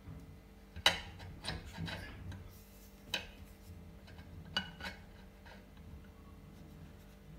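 An adjustable steel spanner clinking and scraping against the front hub-motor axle nut as it is set on the nut. There are a few sharp metallic clicks, the loudest about a second in.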